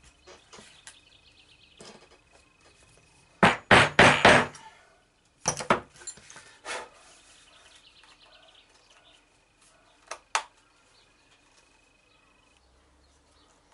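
Mallet blows on a snap-setting tool, setting a metal press stud into a leather pouch: a quick run of about five loud knocks a little over three seconds in, then a few lighter single knocks and a click.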